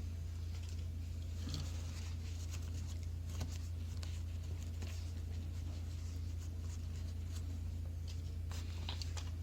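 A few faint clicks and scrapes of small parts being handled, over a steady low electrical hum.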